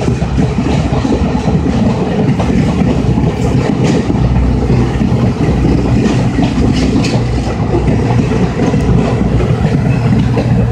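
Double-headed steam passenger train running by: a steady, loud rumble with scattered clicks.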